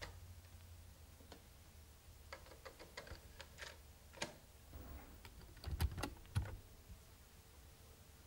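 Plastic cassette deck of a portable radio-cassette player being worked by hand. The cassette door springs open with a sharp click, a cassette is fitted in with a run of small plastic clicks, and the door is shut and a key pressed with a few louder clunks about six seconds in. After that only a faint hum remains as the tape runs.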